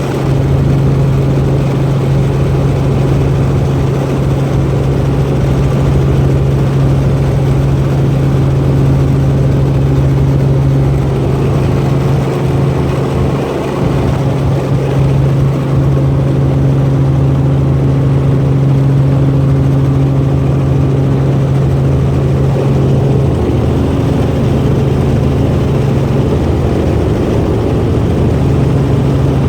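Helicopter in flight: a loud, steady drone of rotor and engine with a strong low hum.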